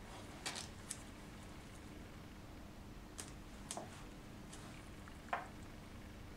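Faint rustling and a few soft crackles from gloved hands handling steri-strips and their dressing-pack backing while taping down an IV cannula, over a low steady hum. The loudest crackle comes near the end.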